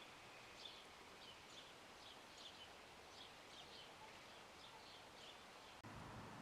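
Small songbird giving faint, short, high chirps, two to three a second, over a steady outdoor hiss. Near the end the sound cuts off abruptly and a low hum takes over.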